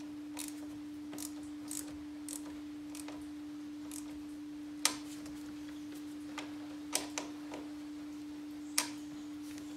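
Sharp metal clicks at irregular intervals from a small hand tool working a battery terminal clamp, the loudest a little before halfway, over a steady low hum.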